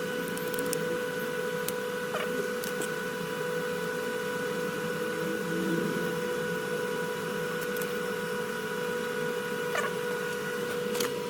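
Steady electric machine whine and hum, with a few faint clicks.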